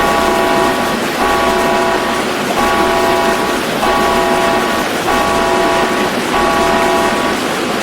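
A multi-tone warning horn sounding a chord of several steady pitches in repeated blasts, about a second each with short gaps, six in a row, over a steady noise: an emergency alarm signal.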